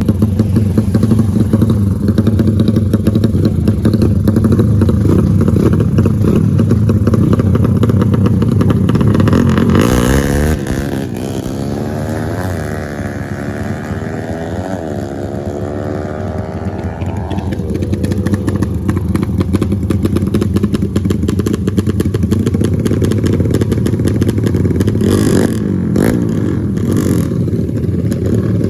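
Racing motorcycle engines running continuously; about a third of the way in, one engine revs up in repeated rising pitch sweeps for several seconds, as if shifting up through the gears, before the steady engine noise returns.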